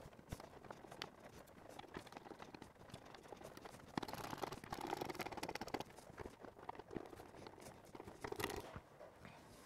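Hand screwdriver driving wood screws through a pallet-wood table frame into the top: faint, irregular scraping and ticking as the screws turn into the wood. It is loudest for a couple of seconds about four seconds in, and again briefly near the end.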